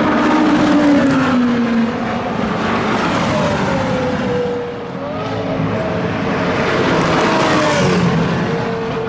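Supercar engine passing at speed, its note falling in pitch as it goes by in the first two seconds. Further engine notes then rise and fall as it runs on down the circuit.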